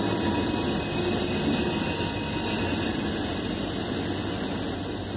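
Three diesel freight locomotives running steadily while they pull a train, heard as an even engine drone with a faint hum.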